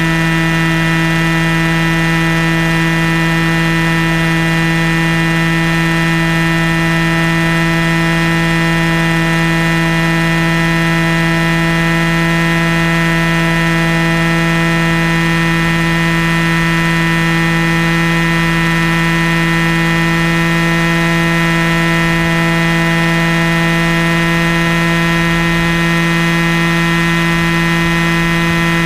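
Large RC helicopter's motor and main rotor, heard from on board at the nose, running with a steady drone that holds one pitch throughout.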